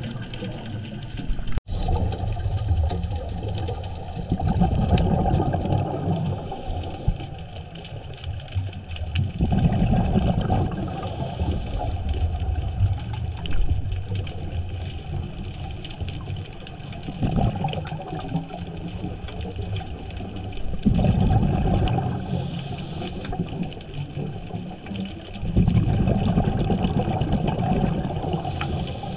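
Scuba regulator breathing heard underwater. Exhaled bubbles rumble in surges every few seconds, and a short high hiss of inhalation through the regulator comes now and then. The sound breaks off for an instant about a second and a half in.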